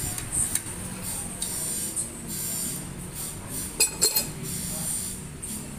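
Metal tools clinking and knocking as a bicycle fork and headset are fitted. A quick cluster of sharp, ringing metallic clinks comes about four seconds in, as a pipe wrench is handled.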